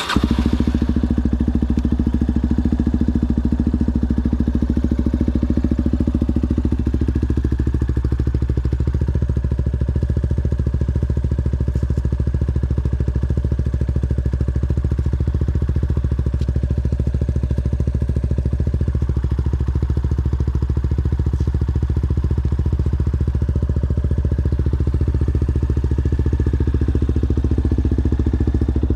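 Yamaha Ténéré motorcycle engine idling steadily through an aftermarket Coyote exhaust, with an even, deep exhaust pulse and no revving.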